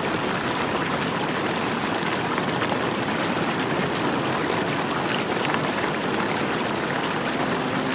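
Steady rushing of flowing water, like a stream. Sustained music notes come in near the end.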